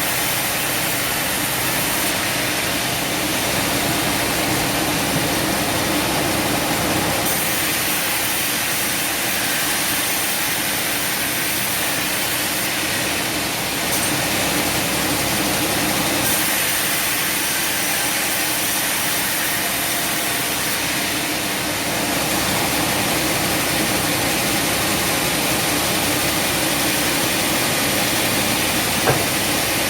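Sawmill machinery running with a steady, even mechanical drone, and a brief tick near the end.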